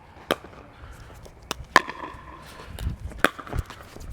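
Table tennis ball hit back and forth in a rally: a series of sharp, irregular clicks off the paddles and table, with a couple of low thumps in the second half.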